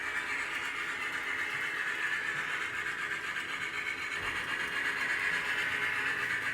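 Athearn Union Pacific 3985 Challenger model steam locomotive with a DCC sound decoder, running steadily on the layout. A steady, even running sound comes from its small onboard speaker and its wheels on the track.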